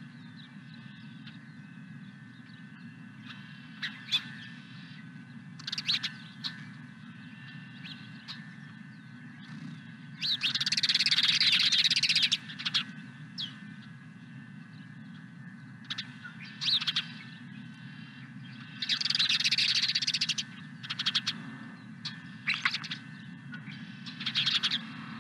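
Wild birds chirping and calling on and off over a steady low background hum. Two longer, louder stretches of calling, each about two seconds, come about ten seconds in and near the nineteen-second mark.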